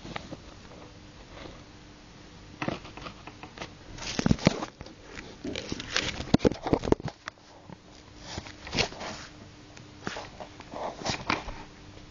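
Irregular rustles and clicks of handling close to the microphone, louder in clusters a few seconds in and again near the end, over a faint steady hum.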